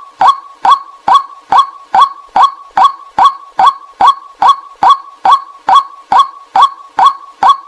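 White-breasted waterhen calls used as a lure: a short, loud 'kwak' note repeated evenly, a little over twice a second.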